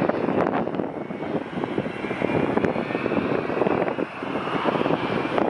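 McDonnell Douglas MD-80 airliner's rear-mounted Pratt & Whitney JT8D jet engines running at high power as the jet rolls along the runway: a rough, steady rumble with a faint high whine above it.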